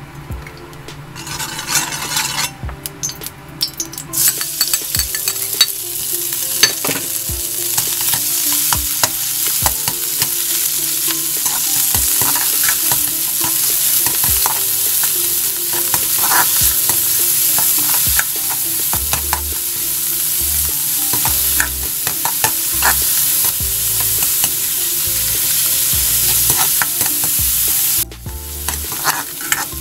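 Food sizzling in a hot wok as it is stir-fried, with a metal spatula clicking and scraping against the wok. The sizzle builds over the first few seconds and drops off sharply near the end.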